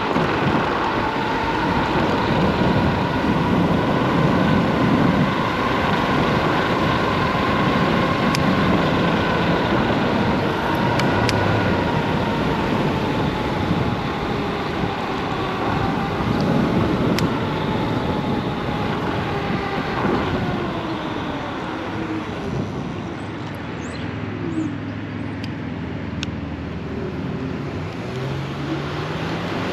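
Dual hub motors of a Solar FF Lite electric scooter whining under way, the pitch drifting with speed over a steady rush of road noise. About two-thirds of the way through the whine falls in pitch and fades as the scooter slows.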